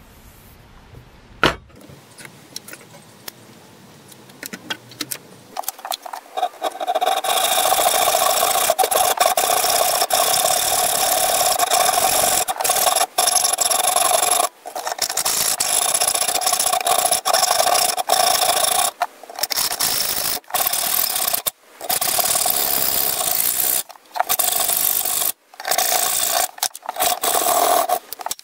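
Hand hacksaw cutting through a metal rod clamped in a bench vice: a steady rasping with a ringing note, stopping briefly several times. A few seconds of light handling and a sharp click come before the sawing starts.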